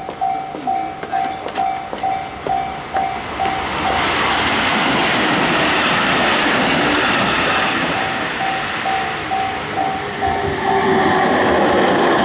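Railway level-crossing warning bell ringing in quick repeated strikes, then a train passing over the crossing, whose rumble and wheel noise swamp the bell about four seconds in. The bell shows through again briefly before the train noise swells once more near the end.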